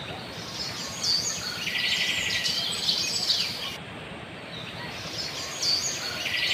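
Small birds chirping, with a quick trilled call about two seconds in and again near the end, over a steady outdoor rushing noise.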